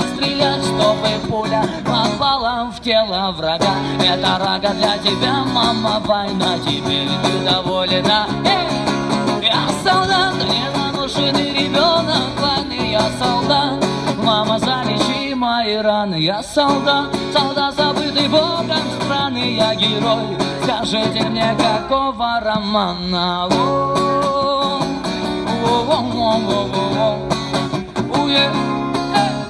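A male street musician singing a Russian rock song to guitar.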